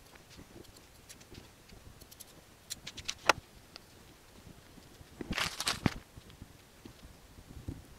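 Steel shears snipping fabric and then set down on a table with a sharp click about three seconds in. A short rustle of cloth being folded and pressed down by hand follows.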